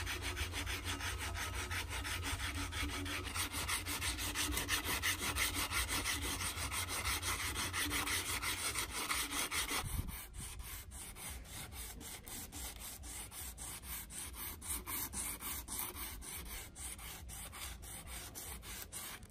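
Sandpaper rubbed by hand over the steel head of an axe, rapid back-and-forth strokes at about three to four a second. The strokes get quieter about halfway through.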